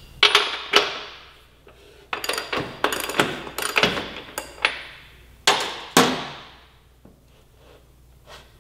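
Sharp metallic knocks and clanks of tools striking the motorcycle's rear axle and wheel as it is worked back in the swingarm chain adjustment: two hits, then a quick run of about ten strikes, then two more heavy hits, and a faint knock near the end.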